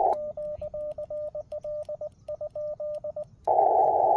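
Morse code sent on a Yaesu amateur radio transceiver: its sidetone beeps in dots and dashes as a small brass key is pressed, with a short pause about two seconds in. The receiver's hiss is muted while sending and comes back loud near the end.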